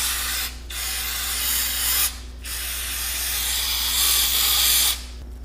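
Aerosol can of brake parts cleaner spraying in three long hisses, broken by two short pauses about half a second and two seconds in, and stopping about five seconds in.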